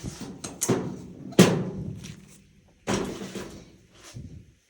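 Sheet-metal clunks and knocks from a clothes dryer's cabinet panels and parts being handled during disassembly, the loudest about a second and a half in, followed by a short scraping noise around the three-second mark.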